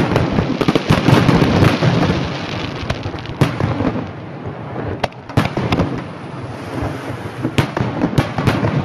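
Aerial fireworks: a dense run of bursting shells and crackle for the first couple of seconds, then single sharp bangs every second or two over a low continuous rumble.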